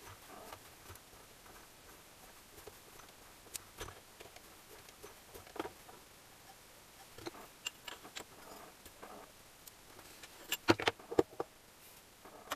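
Scattered light metallic clicks and taps of a screwdriver working inside a bearing bore of a metal engine casing during assembly, with a quick run of louder sharp clicks near the end.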